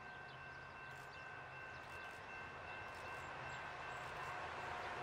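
Diesel train approaching in the distance, its low engine hum and rail noise slowly growing louder, with two faint steady high-pitched tones over it.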